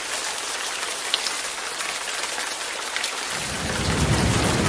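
Steady rain hiss from a thunderstorm. About three seconds in, a low rumble of thunder starts and builds.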